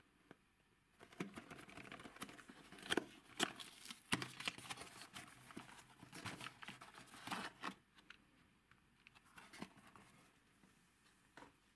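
A small cardboard toy box opened by hand: the card flaps crackle and scrape, with many sharp clicks. The handling is busiest from about a second in until about two-thirds of the way through, then drops to a few light clicks.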